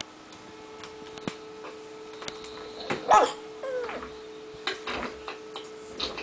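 A dog gives one sharp yip about three seconds in, followed at once by a short whine, over a steady faint hum and scattered light clicks.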